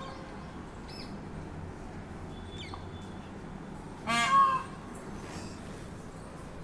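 A single loud, harsh animal call about four seconds in, lasting about half a second, over a steady low background hum.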